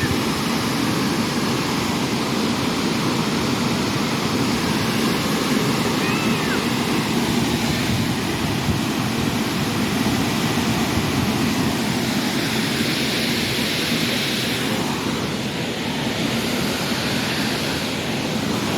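Steady rushing of a waterfall: a constant wash of falling water.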